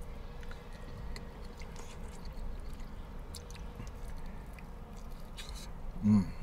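A person chewing and biting into a piece of fried chicken, with small wet mouth clicks over a low steady hum. A brief voiced sound comes from the eater near the end.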